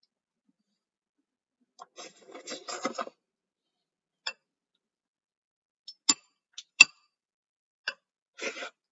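Metal spoon scraping and clinking against a soup bowl: a clatter of scrapes about two seconds in, then a handful of sharp, separate clinks.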